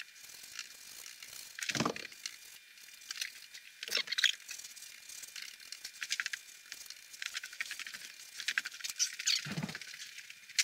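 Faint, intermittent brushing and scratching of a paintbrush working black paint along the inside edge of a wooden frame, with a few louder short squeaks.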